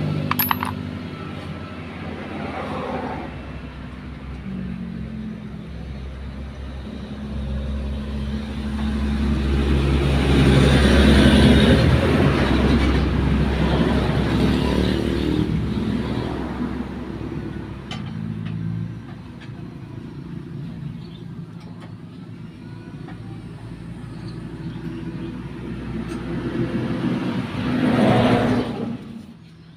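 A motor vehicle engine running, with a steady low rumble that swells in loudness twice, about a third of the way in and again near the end.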